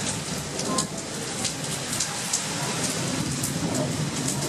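Heavy rain of a thunderstorm falling steadily, with sharp drops striking close by and a low rumble underneath.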